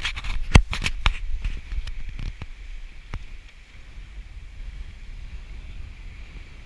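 Wind buffeting the camera microphone as a steady low rumble, over a cluster of sharp knocks and clicks in the first second or so. Fainter clicks follow and die away by about three seconds in.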